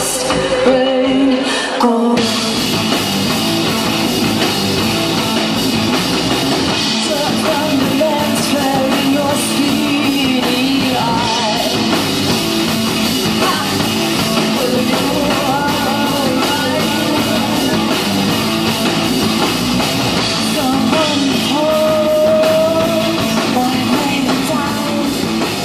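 A live band playing an amplified song through the PA: drums, electric guitar, keyboards and a singer's voice, with the full band coming back in after a short dip about two seconds in.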